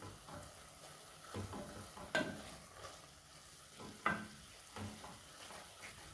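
A spoon stirring and scraping through a minced-meat and tomato stew sizzling in a pot, with two sharp knocks of the spoon against the pot about two and four seconds in.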